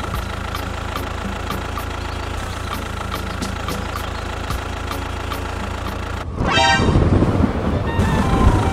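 Tractor engine running steadily. About six seconds in, a horn toots briefly and the engine gets louder and rougher.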